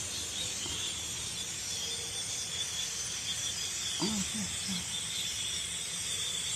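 A steady, high chattering din from a large flock of blackbirds. About four seconds in there is a brief, low three-note vocal sound.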